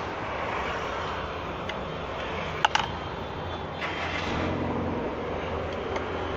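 Steady vehicle noise with a low hum, with two sharp clicks about two and a half seconds in and a brief swell of noise near the middle.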